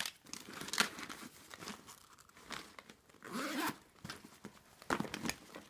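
Rustling and crinkling handling noise as packaged items are pushed into a PU leather handbag, with irregular sharp clicks and scrapes and a louder crinkly stretch about halfway through.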